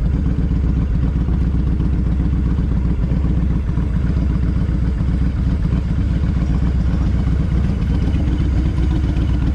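Cruiser motorcycle's engine running steadily, heard up close from the rider's seat as an even, low pulsing.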